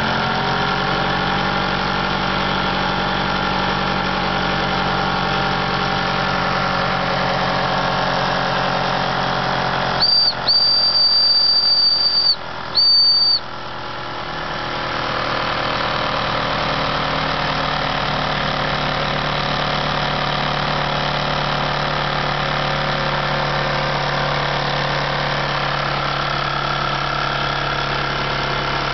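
Wilesco D22 toy steam engine and a small Fleischmann vertical steam engine running steadily, picking up speed at the start. About ten seconds in, a high steam whistle blows three times, short, long, short, over about three seconds, and the engines' running sound drops and then builds back up.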